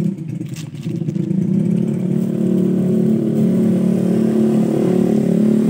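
A motorcycle engine running steadily close by. It grows louder about a second in, then holds a steady drone.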